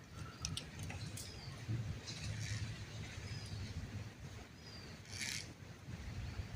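Outdoor ambience with a few short, falling bird chirps, some sharp clicks and two brief rustling bursts over a steady low rumble.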